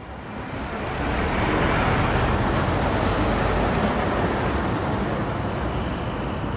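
Earthquake rumble sound effect: a deep, noisy rumble that swells up out of silence over the first second or so, holds steady, then eases slightly near the end.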